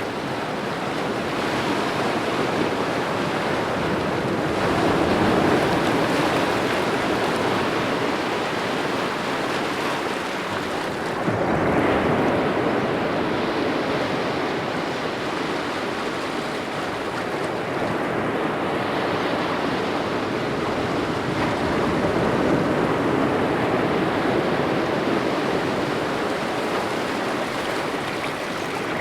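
Gentle ocean waves breaking on a beach: a continuous wash of surf that swells and ebbs every several seconds as each wave breaks and runs back, with the strongest break about twelve seconds in.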